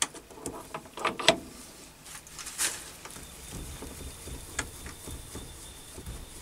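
Sharp metal clicks and knocks as a tool holder is fitted onto a mini lathe's tool post, followed by quieter handling and one more click partway through.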